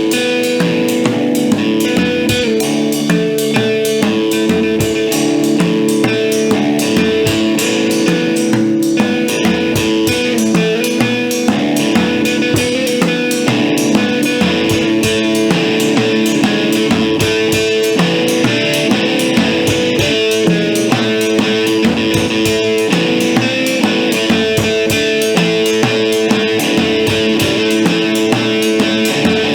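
A rock band playing live in a room: guitar holding ringing chords over a drum kit played in a quick, busy pattern.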